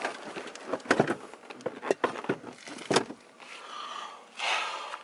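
Sharp knocks and clicks about once a second, with lighter clatter between, as a bucket seat is worked into place on its mounting rails in a car, then a brief rushing noise near the end.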